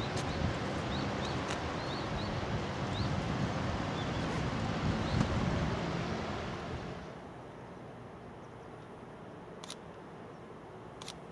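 Shallow river rushing over stones in a steady noise, with a few short bird chirps. About seven seconds in, the water noise drops away to quieter outdoor ambience with two short clicks near the end.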